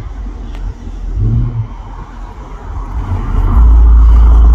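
An approaching Union Pacific intermodal freight led by a GE ES44AC diesel-electric locomotive, with its engines running and the sound of the train building as it nears. About three and a half seconds in, a very loud low rumble takes over.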